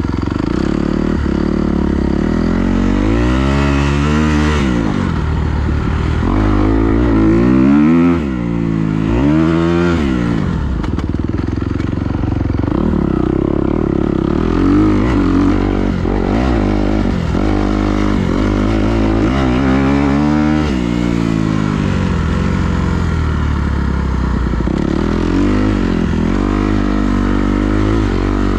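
A motor vehicle engine running, its pitch rising and falling several times as it revs up and eases off, mostly in the first ten seconds and again about two-thirds of the way through.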